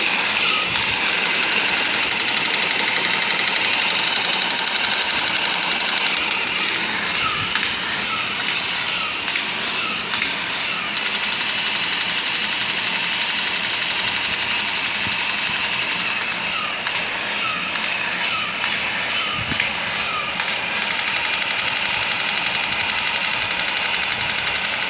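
Battery-operated crawling Spider-Man soldier toy running: its small motor and gears whir with a steady rapid rattle as its plastic limbs crawl across a tile floor.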